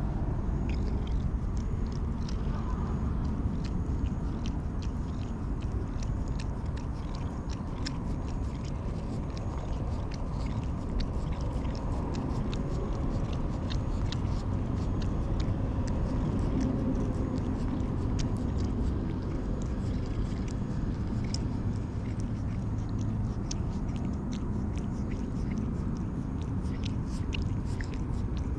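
Orange-and-white cat being stroked close to the microphone: a steady low purr, with many small clicks and rasps as it rubs its face against the hand and licks it with its rough tongue.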